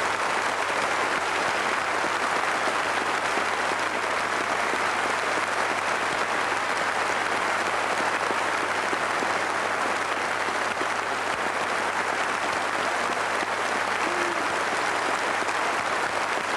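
Large theatre audience applauding steadily, dense even clapping that keeps up without a break.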